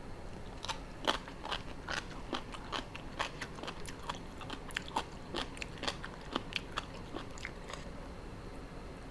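Close-up chewing of crunchy food, a mouthful of spicy seafood papaya salad: a quick run of sharp crunches that stops about a second before the end.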